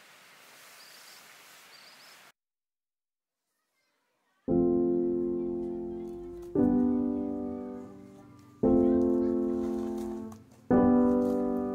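Background piano music: a chord struck about every two seconds, each left to fade, starting after a brief silence. Faint outdoor ambience comes before the silence.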